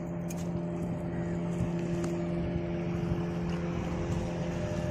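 An engine running steadily, a low even hum with a clear pitch that does not change.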